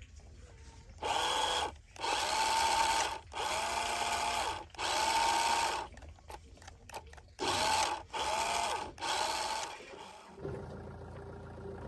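A small electric motor run in about seven short bursts of roughly a second each, its pitch rising as it spins up and falling as it stops each time.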